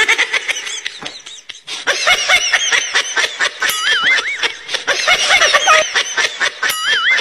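Rapid, repeated bursts of laughter, with a high wavering tone over them about four seconds in and again near the end.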